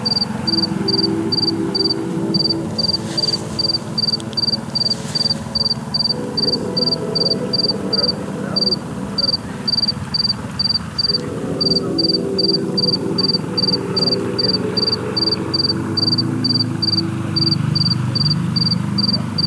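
A cricket chirping steadily, about two to three short high chirps a second, with a couple of brief pauses. Under it runs a louder, lower, steady sound whose pitch shifts every few seconds.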